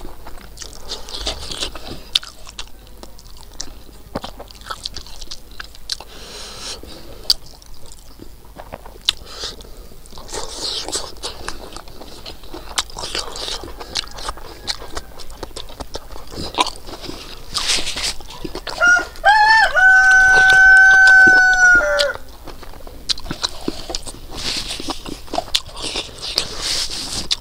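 Close chewing and small mouth clicks of someone eating with his fingers, and about two-thirds of the way through a rooster crowing loudly once for about three seconds, rising at the start and then holding one long note.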